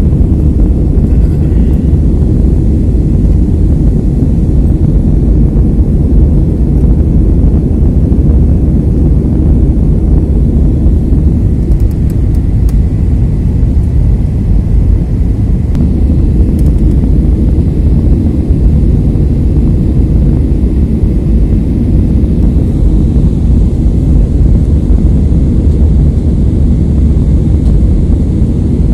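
Steady low rumble of cabin noise inside a jet airliner in flight, the engines and rushing airflow heard through the fuselage.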